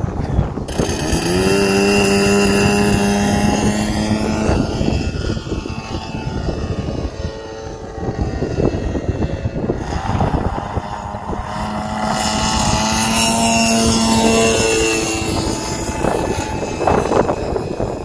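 Engine of a radio-control aerotow tug plane running at full power, a steady buzzing note that falls in pitch twice, about four seconds in and again near fifteen seconds in.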